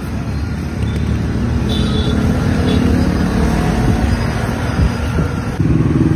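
Steady motor-vehicle engine noise, growing louder and fuller about five and a half seconds in.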